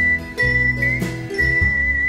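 Background music: a whistled melody of long held notes with a slight wobble, over deep bass notes and light jingling percussion.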